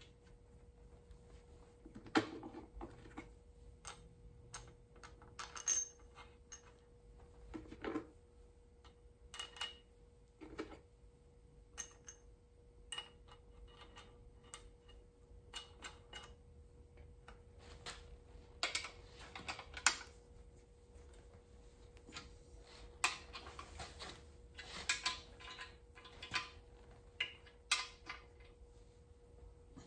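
Scattered metal clinks and clicks from a wrench and the Kwik-Way portable valve seat cutter's mounting bracket against a Model A Ford engine block as the bracket's hold-down nut is tightened, with short runs of clicks in the second half.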